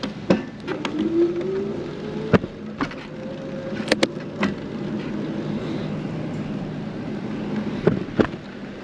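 A vehicle's engine running steadily, its pitch rising slowly over the first few seconds and then holding. Sharp clicks and knocks are scattered throughout.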